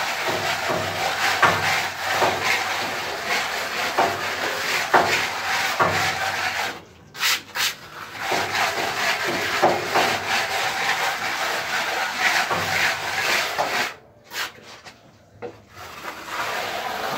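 A plastering tool scraping and rubbing over textured scratch render (Reibeputz) on a wall, in quick rough strokes. The scraping stops briefly about seven seconds in and again about fourteen seconds in.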